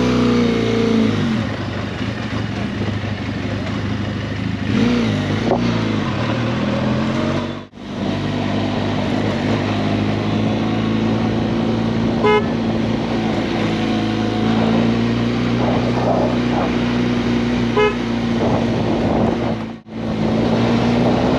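Benelli TRK 502X's parallel-twin engine running under way, its revs rising and falling near the start and again about five seconds in, then holding steady. Two short horn toots, about 12 and 18 seconds in.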